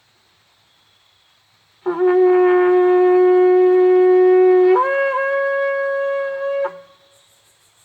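A shofar blown in one long blast: a low note held for about three seconds, then a jump up to a higher note held for about two seconds before it cuts off.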